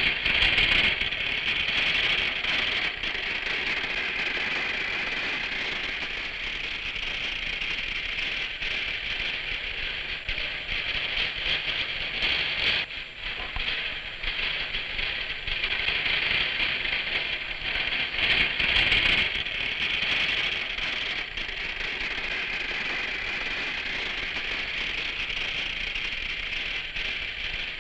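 Steady hissing, rattling machine noise of dock work: a forklift carrying a log across the quay, heard on an old film soundtrack.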